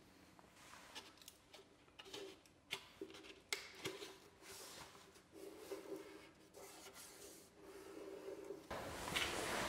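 Sandpaper rubbed by hand over an old wooden desk panel: faint, uneven scratchy strokes that grow louder near the end.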